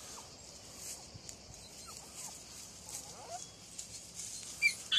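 Faint rustling of dry leaves and grass as a Lagotto Romagnolo puppy noses through them while searching, with a few faint short chirps and one short high squeak near the end.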